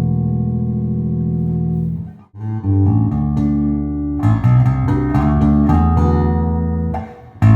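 Gibson Tobias Growler four-string electric bass being played: a held low note rings and dies away about two seconds in, then a run of plucked notes follows, with a short break near the end.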